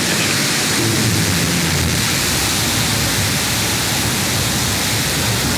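Blue Origin New Shepard booster's BE-3 rocket engine firing at ignition and liftoff: a loud, steady rushing noise that comes on just before the start and holds without a break.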